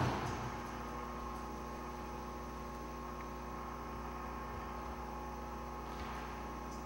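A steady electrical hum made of several fixed tones, unchanging throughout. Right at the start a single sharp knock dies away within about half a second.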